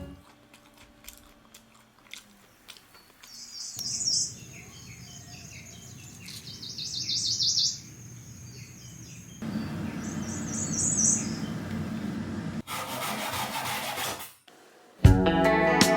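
Small birds chirping in three short bursts of rapid high notes, over a rustling, scraping noise.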